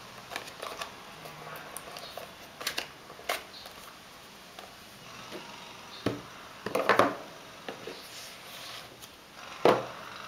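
Hands handling the iPhone 3G's black cardboard box and its inner packaging pieces: scattered taps, clicks and scraping rustles, the loudest a little past halfway and again near the end.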